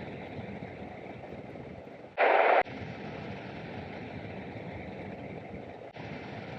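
Steady in-cabin running noise of a 2004 Lexus RX330 driving slowly down a snow-covered road. About two seconds in there is a brief, loud rushing burst that starts and stops abruptly.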